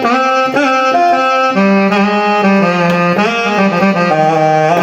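Electronic keyboard's saxophone sample playing a melody, several notes bent down and back with the pitch-bend lever to make the saxophone sound more real. About a second and a half in, lower held notes join underneath the melody.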